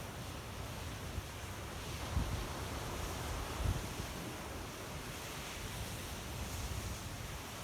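Sea waves washing onto the shore with steady wind, and low gusts buffeting the microphone about two seconds in and again near four seconds.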